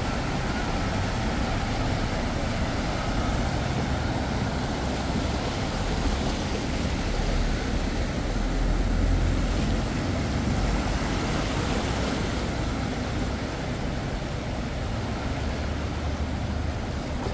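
A vehicle running: a steady low rumble with hiss, swelling to its loudest about nine seconds in.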